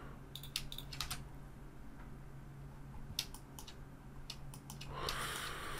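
Computer keyboard keys being pressed, a dozen or so light, irregular taps over a faint steady low hum.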